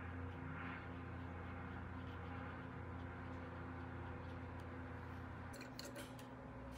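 Steady low electrical hum of room tone, with a few light clicks and rustles near the end.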